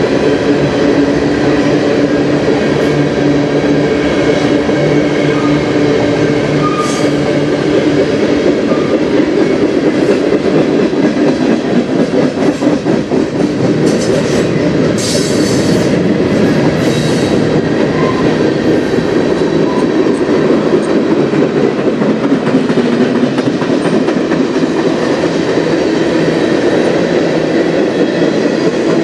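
Freight cars of a long manifest train (covered hoppers, flatcars and tank cars) rolling steadily past, their steel wheels rumbling on the rail and clicking rapidly over the joints. A few short high-pitched noises come around the middle.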